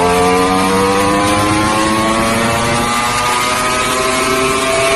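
Ducati Panigale V4 superbike's V4 engine running hard at high revs, its pitch climbing slowly and steadily as it accelerates, then levelling off near the end.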